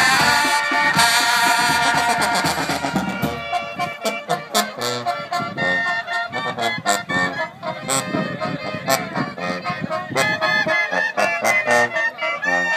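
Music that cuts in suddenly with a loud held chord, then goes on as a quick, rhythmic melody.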